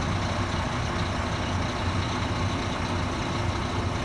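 Heavy diesel engine of construction machinery running steadily at idle, a constant low hum with no changes.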